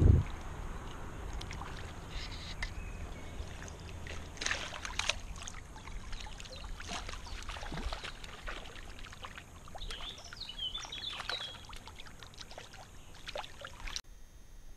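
Shallow river water splashing and sloshing in irregular bursts close to the microphone, stirred by wading and a landing net moving in the water.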